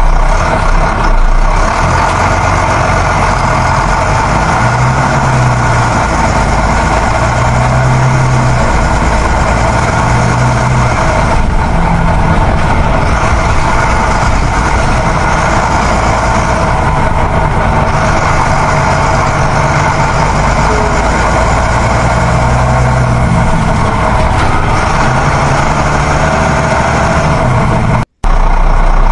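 Heavy truck engine running steadily, with a brief cut to silence near the end.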